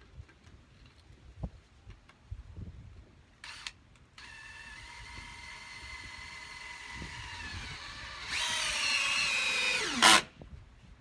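A power drill: a brief blip of the trigger, then the motor runs steadily for several seconds and grows louder for the last two, before winding down with a falling whine as it is released. A few light knocks come before it.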